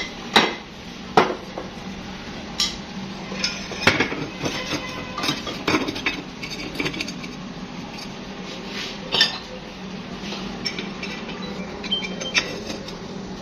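Metal clanks and clinks of a DC water pump's finned aluminium motor housing being handled and fitted down over the rotor onto the pump body. Two sharp knocks in the first second and a half are the loudest, followed by scattered clinks and a few more knocks.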